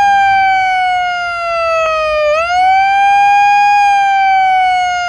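Handheld megaphone's built-in siren wailing loudly: a tone that sags slowly in pitch, sweeps back up about two and a half seconds in, then sags again.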